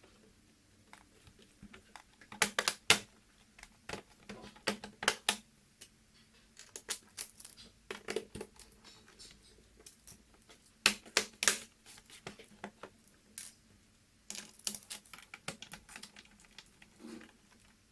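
Irregular sharp clicks and taps in small clusters of two to five, from screws, a screwdriver and the plastic case of a laptop being handled during reassembly.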